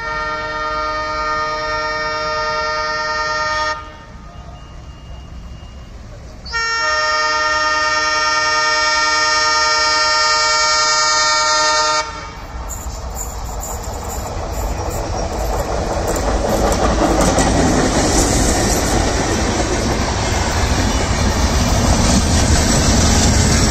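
Multi-tone horn of twin ALCo diesel locomotives sounding two long blasts, then the locomotives and their coaches passing close by, engine noise and the clatter of wheels on rail growing louder toward the end.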